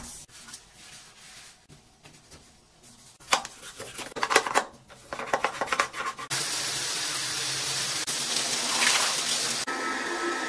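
A sponge and a small brush scrubbing a glass shower enclosure and its niche, with a run of sharp clicks and knocks midway. A steady rushing hiss follows, and near the end a handheld window vacuum squeegee starts up with a steady motor whine.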